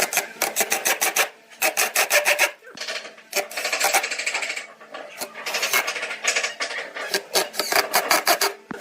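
A hand tool scraping back and forth over wood, like a rasp, file or sanding block: rapid strokes, about seven a second, in bursts with short pauses between them.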